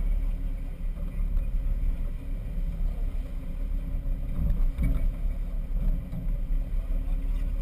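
Sportfishing boat's engines running underway, a steady low rumble with water rushing past the hull.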